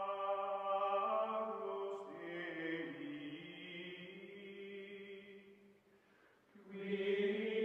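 Slow, chant-like choral music of long held voices, the notes shifting about two seconds in and dropping away briefly near the end before swelling again.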